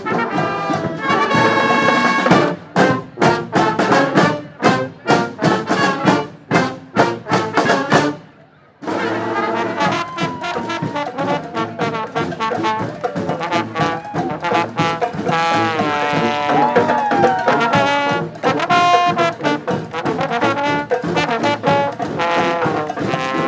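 Brass street band playing live, trombones and trumpets to the fore. For the first eight seconds it plays short, punchy stabs with sharp hits. After a brief break it plays sustained melody lines with sliding horn phrases.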